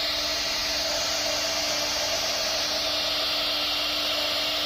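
CNC router spindle running at speed as its fine carving bit cuts a relief pattern into a wooden panel: a steady high hiss over a constant low hum.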